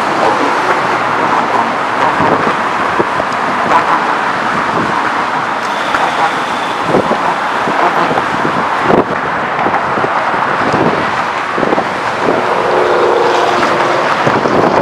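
Steady road traffic noise from cars crossing a bridge, with a few brief knocks, the loudest about nine seconds in.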